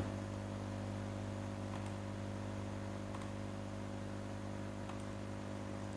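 Steady electrical mains hum with faint hiss in the recording, with a few faint ticks.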